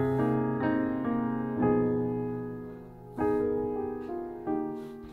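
Background piano music: slow chords struck about every second or two, each left to ring and fade.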